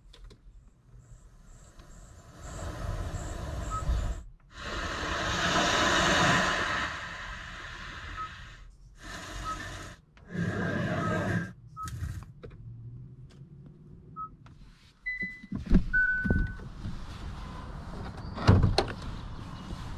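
Kia's built-in Sounds of Nature ambient soundscapes playing through the Harman Kardon car audio, switched every few seconds so each one cuts off abruptly, with short touchscreen beeps between them. Near the end come a couple of short chime tones and several thumps from the driver's door being opened.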